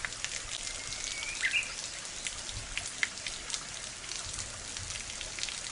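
Water falling from a bamboo kakei spout and splashing steadily into the water below, with many small drop sounds. About a second and a half in, a bird gives one short whistle ending in a quick flourish.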